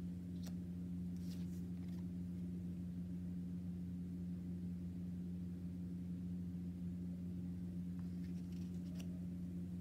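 Steady low hum of room noise, with a few faint, brief rustles and taps of paper cards being handled, about a second in and again near the end.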